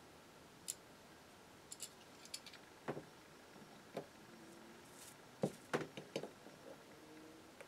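Faint scattered clicks, taps and light scratches of metal marking-out tools, digital calipers and a scriber, being set against and drawn along a layout-dyed aluminium block.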